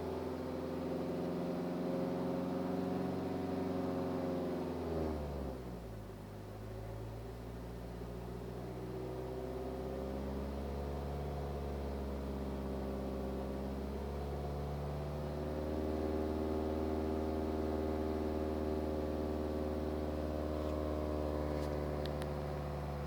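BMW 318d E91's four-cylinder diesel engine running with a steady, strange hum, the complaint being a humming that appears above 2000 rpm. The pitch drops about five seconds in, climbs back gradually and holds steady, then dies away at the end.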